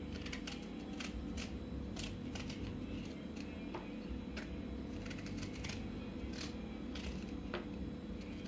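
Knife slicing a turnip into thin slices: a quick, irregular run of light cutting clicks, a few a second, over a faint steady hum.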